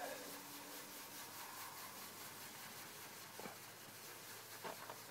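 Faint rubbing of a polishing cloth back and forth over a plastic headlight lens by hand, working in polishing compound, with a couple of light taps near the end.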